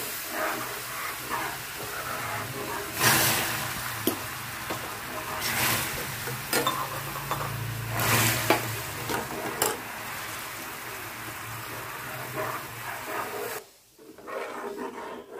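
Hot caramelized sugar sizzling and bubbling in a non-stick frying pan as boiling water is poured in a little at a time and stirred with a slotted spatula. Several louder surges of hissing come as the water hits the caramel. The sound dies down near the end.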